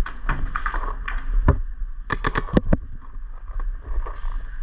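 Paintball marker shots: a few scattered pops, then a quick string of about five a little past two seconds in.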